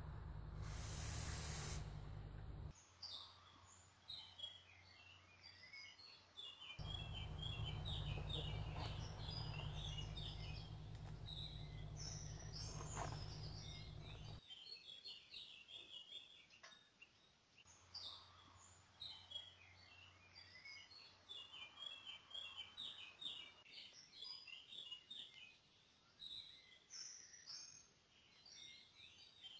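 Woodland birds singing, a steady run of quick chirps and whistles. A low rumble comes and goes during the first half, and a brief hiss sounds about a second in.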